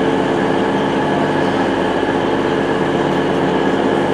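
CrossCountry Voyager diesel multiple unit's underfloor diesel engines running loudly and steadily as the train pulls away from the platform, revved up to move off.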